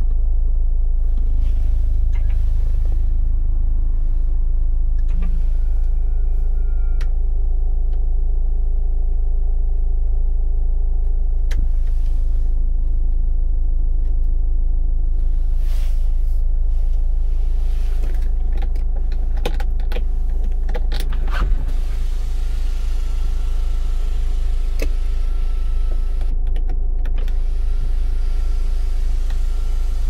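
Daewoo Winstorm SUV heard from inside the cabin while it runs and drives slowly: a steady low rumble, with a few sharp clicks near the middle. Near the end, the electric sunroof motor runs as the sunroof opens.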